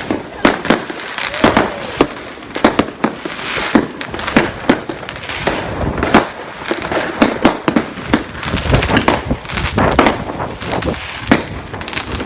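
Fireworks and firecrackers going off in a dense, irregular barrage of sharp bangs and crackles, many in quick succession.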